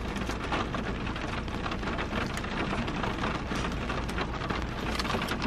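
Heavy rain pouring down: a steady dense hiss of falling rain with many sharp individual drop hits.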